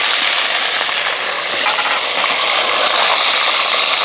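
Lobster pieces deep-frying in a pot of hot oil: a steady sizzle of bubbling oil, growing a little brighter about a second in.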